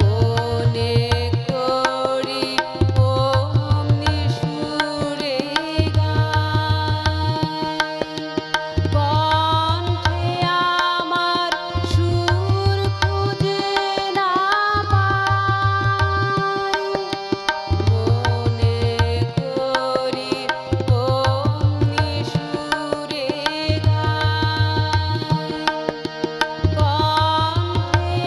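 A woman singing a Bengali song over harmonium, with tabla accompaniment. The tabla's deep bass-drum strokes come back in a steady cycle about every three seconds.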